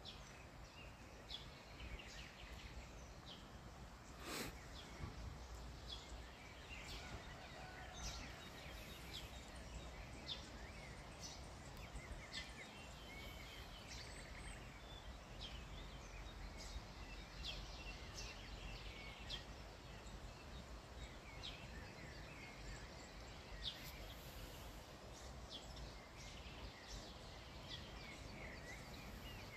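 Faint birds chirping and calling at scattered intervals, over a steady low outdoor rumble. One sharp click about four seconds in.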